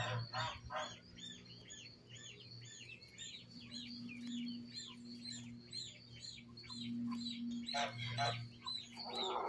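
A bird chirping over and over, short arched high-pitched notes about three or four a second, with a faint low hum underneath.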